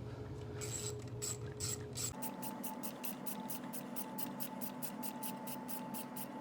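Ratchet wrench with a 9 mm socket clicking as it loosens a nut on the radio suppression capacitor's mounting: a few slower clicks, then a fast, even run of about five clicks a second.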